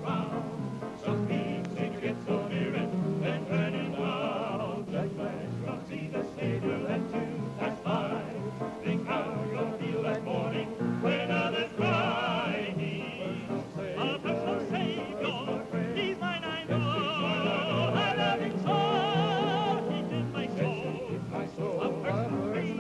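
Gospel music: singing in which a tenor voice holds high notes with a strong, wide vibrato, most markedly in the second half.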